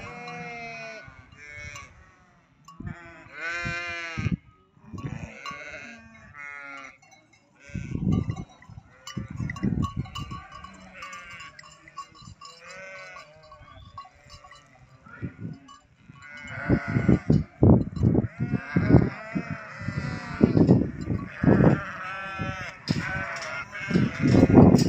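Flock of sheep bleating, many wavering calls overlapping one another. From about two-thirds of the way in, loud low thumps and rumbles come in under the bleats.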